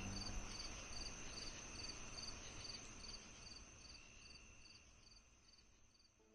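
Faint cricket chirping in an even rhythm, about two to three chirps a second, over a low hiss that fades steadily away.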